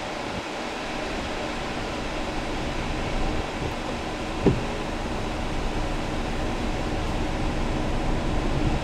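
Steady road and engine noise inside a moving car, with a short click about four and a half seconds in.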